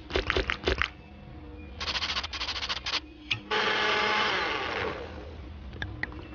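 Electric countertop blender: a few sharp clicks, then a fast rattling pulse about two seconds in, then a steady whir for about a second and a half as it blends a drink.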